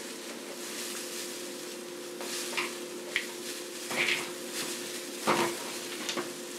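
A plastic-bag-covered hand tossing and pressing tomato, green beans and chillies in a glass baking dish: soft plastic crinkling and wet squishing, with a few light knocks against the glass, the loudest about five seconds in.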